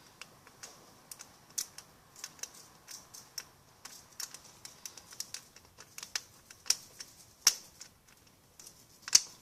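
Irregular small metallic clicks and taps of a lock pick and tension wrench working the stiff pins of an old pin-tumbler padlock, with a couple of louder clicks toward the end.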